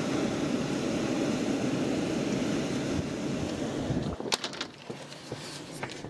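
Blizzard wind of around 65 to 70 mph rushing and buffeting the microphone in a steady low roar. About four seconds in it cuts off sharply, followed by a few sharp clicks and knocks.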